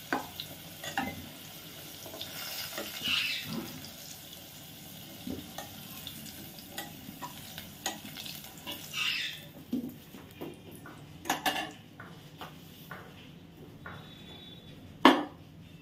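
Potato pieces sizzling in hot frying oil while a spatula stirs and scoops them out of the pot, with scrapes and clinks of the spatula against the pot. The sizzle dies down a little after halfway, and a sharp knock near the end is the loudest sound.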